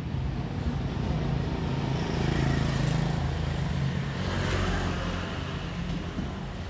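Street traffic: a motor vehicle's engine running nearby, swelling louder a couple of seconds in and easing off again, as if passing by.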